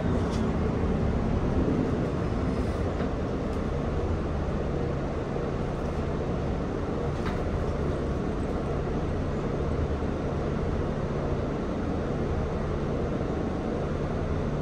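Cabin running noise of a Mercedes-Benz Citaro O530G articulated bus: a steady low diesel engine hum mixed with road noise, with a couple of faint clicks.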